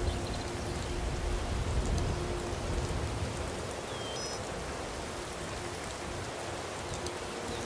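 Steady rain-like hiss, with faint held low tones now and then.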